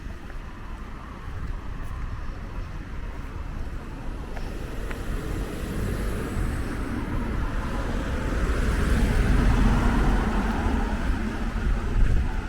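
A road vehicle passing: a broad noise that grows louder to a peak about three-quarters of the way through, then eases, over a constant low rumble.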